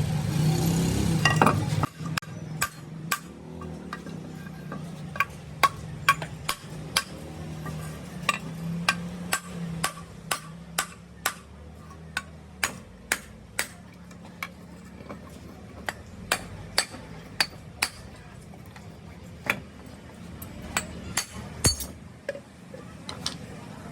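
Hand tools tapping and clinking on metal turbocharger parts: a long run of sharp, irregular taps, roughly one or two a second, over a low steady hum. A louder rush of noise cuts off abruptly about two seconds in.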